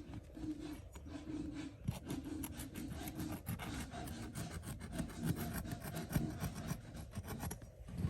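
Small knife sawing through a tarpaulin pond liner, cutting out a hole for a drain outlet: a run of quick, uneven rasping strokes.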